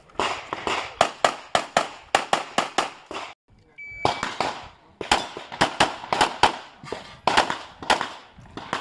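Rapid strings of pistol shots, about four a second, each with a short echo. A brief dropout a little over three seconds in breaks the strings.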